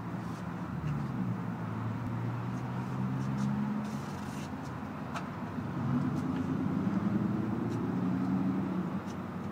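Motor vehicle engine noise: a steady low rumble with engine tones that slowly shift in pitch, a little louder in the second half.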